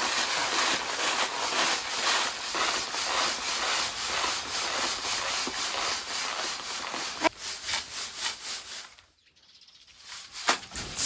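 Rapid back-and-forth rasping strokes on wood, running for about nine seconds and then stopping. Two sharp knocks follow near the end.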